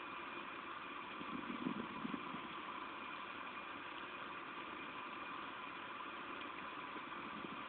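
Steady rain, heard as a continuous even hiss, with a brief low rumble about a second and a half in.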